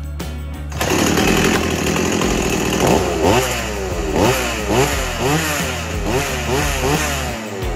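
Stihl MS180 C two-stroke chainsaw engine running after its no-compression repair. It sets in about a second in, then from about three seconds in it is revved up and down about twice a second.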